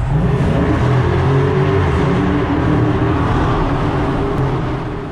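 Car engine running steadily under way with tyre and road noise, heard from inside the car as it drives through a tunnel; it eases off slightly near the end.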